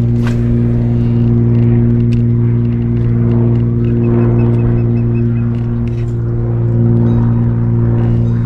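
A steady, loud motor hum with a low droning pitch that does not change, with a few faint clicks over it.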